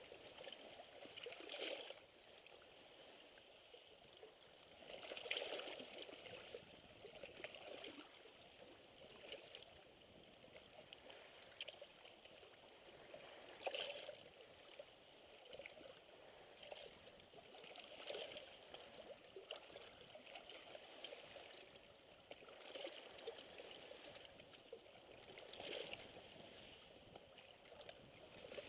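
Small waves lapping and splashing against shore rocks, faint, with a soft wash every few seconds; the strongest splashes come about 5 and 14 seconds in.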